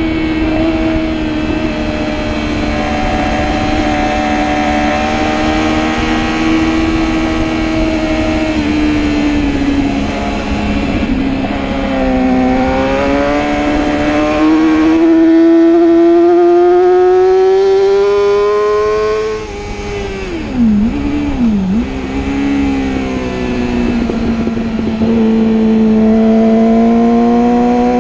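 Motorcycle engine at full throttle on a race track, its pitch climbing and dropping as it pulls through the gears. About two-thirds through the revs fall away with two quick throttle blips for a corner, then the engine climbs again. Wind rushes over the microphone throughout.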